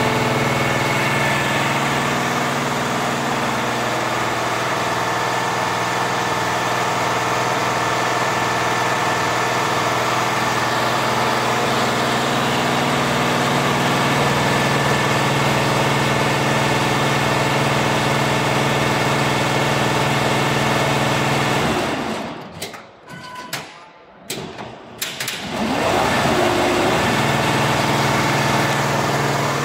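A 12-head flat embroidery machine running steadily on a stitching test. The heads make an even mechanical hum with steady tones. A little past two-thirds of the way through, the sound drops away for about three seconds and then rises back to its running level.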